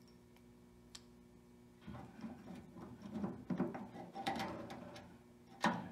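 Small clicks and rattles of a plastic-and-metal tailgate latch assembly being handled and pressed into place on the tailgate, with one sharper snap near the end.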